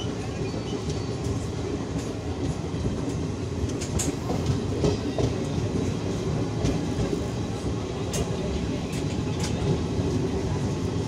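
Passenger express train running at speed, heard from a coach doorway: a steady rumble of wheels on rails with a few sharp clicks as the wheels cross rail joints.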